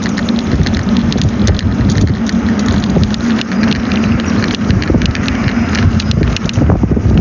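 Mobility scooter driving along at walking pace: a steady motor hum under constant small rattles and clicks.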